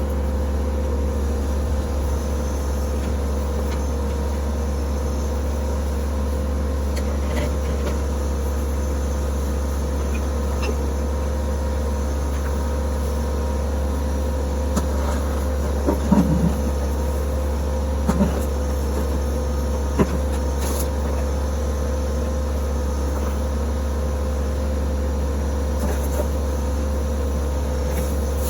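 TYM T264 compact tractor's diesel engine running at a steady speed, with a few short clunks around the middle.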